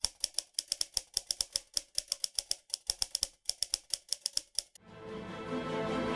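Typewriter keystroke clicks, rapid and irregular, for nearly five seconds. They stop abruptly, and a swell of music rises in loudness after them.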